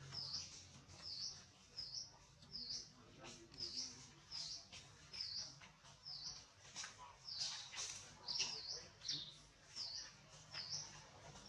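A bird calling over and over: short, high chirps repeated steadily, about one every two-thirds of a second.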